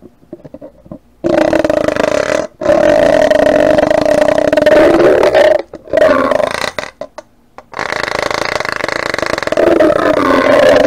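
Battery-powered Norpro handheld mini whisk (milk-frother type) whirring as its spinning coil mixes green soap colorant in a plastic measuring cup. It starts about a second in and cuts out briefly two or three times, with its pitch wavering as it runs.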